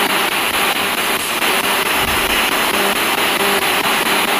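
Ghost-box radio sweeping through stations: loud continuous static, chopped into rapid even steps as it skips from frequency to frequency, with a faint low hum coming and going.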